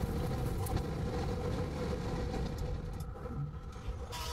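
Cabin noise of a moving car: a steady rumble of road and engine with a faint hum running through it, easing off slightly about three seconds in.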